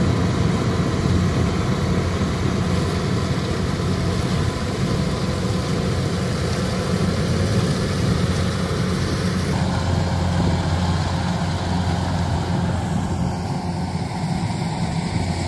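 Diesel engine of a Kubota DC-95 tracked rice combine harvester running steadily under load while it cuts and threshes, a continuous low hum.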